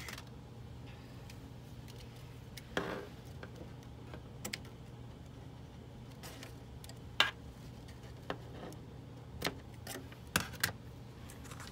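Scattered small clicks and taps as a card-stock box, lace and crafting tools are handled and trimmed, over a low steady hum.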